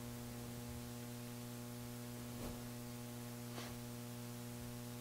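Low, steady electrical mains hum, a buzz with a stack of overtones, with two faint ticks in the middle.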